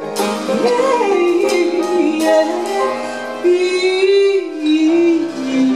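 A live band playing with a woman singing long, wavering held notes, with a few sharp drum or cymbal hits in the first two seconds.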